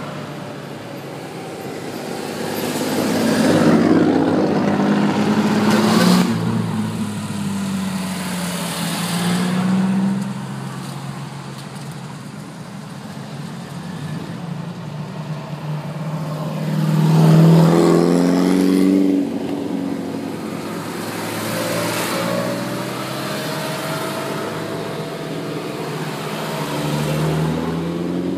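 A procession of classic sports cars driving past one after another. Each engine note swells as the car approaches and fades as it goes by, with the loudest pass about two-thirds of the way through.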